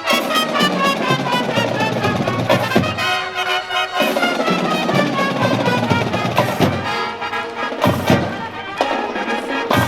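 A high-school marching band playing a march: brass melody over drums keeping a steady beat.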